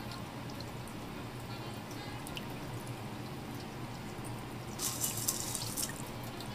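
Water splashing and dripping at a kitchen sink as small fish are cleaned by hand, with a short louder splash about five seconds in.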